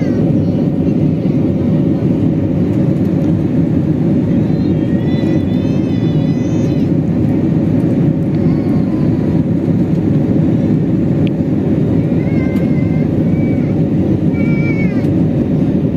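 Jet airliner cabin noise in flight: the steady, loud rumble of the engines and airflow heard from a window seat.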